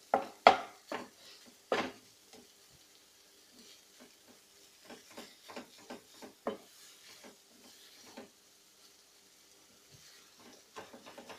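Spatula scraping and knocking against a nonstick wok as chicken keema in masala is stirred, with light sizzling underneath. The strokes come irregularly, loudest in the first couple of seconds, softer through the middle, with a short pause and then a quick run of strokes near the end.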